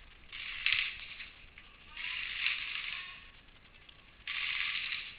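Airsoft guns firing three short full-auto bursts, each heard as a hissing rattle about a second long: one near the start, one about two seconds in, and one near the end.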